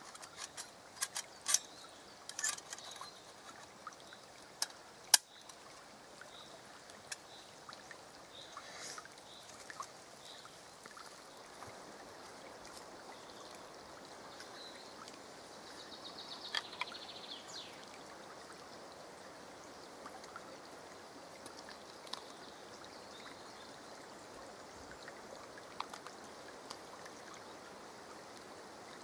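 A small forest brook trickling steadily, with scattered metallic clicks and knocks from handling a brass spirit burner and a folding stove box during the first ten seconds; one sharp click about five seconds in is the loudest.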